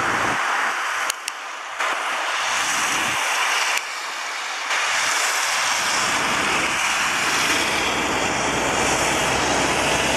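Jet engines of an Airbus A340-600, its four Rolls-Royce Trent 500 turbofans, running with a steady rushing hiss as the airliner taxis close by. The sound changes abruptly several times in the first five seconds where shots are cut together, then holds steady with a low rumble underneath.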